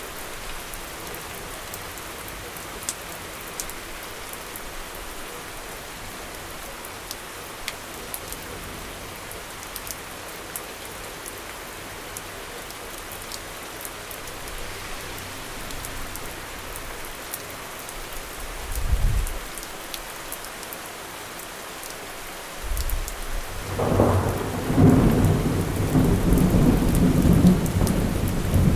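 Steady rain falling, with drops ticking on hard surfaces. A brief low rumble of thunder comes about two-thirds of the way in, and near the end a louder, longer thunderclap rolls and grumbles to the close.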